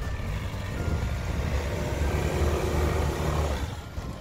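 Land Rover Freelander engine working as the SUV crawls over a loose gravel mound, with the tyres grinding on the stones. The engine eases off near the end.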